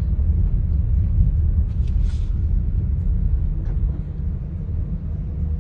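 Steady low rumble of a vehicle being driven slowly, road and motor noise heard from on board, with a few faint ticks.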